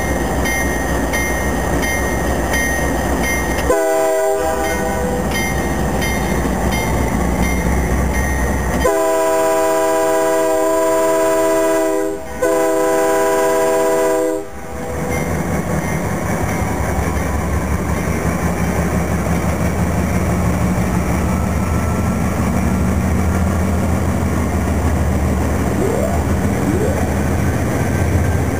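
Nathan Airchime K3H horn on a GE AC4400CW diesel locomotive: a short blast about four seconds in, then a long chord blast of several seconds with a brief break near its end. Under it runs the steady rumble of the locomotive's diesel engine as the train rolls slowly past.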